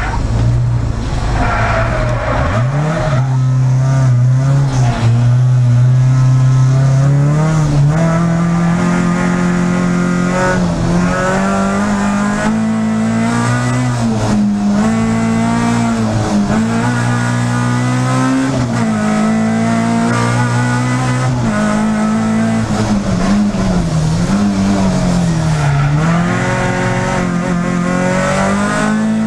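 Peugeot 306 Group A race car's engine heard from inside the cabin, revving hard and falling back again and again as it shifts gear and lifts for corners on a circuit lap.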